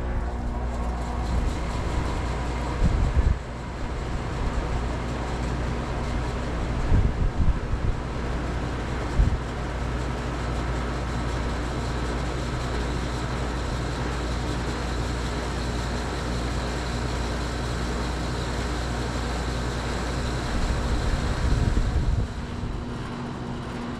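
Lennox Elite XC14 5-ton central air-conditioner condensing unit running steadily just after start-up: compressor hum with the condenser fan's whoosh. Gusts of wind hit the microphone a few times, briefly louder.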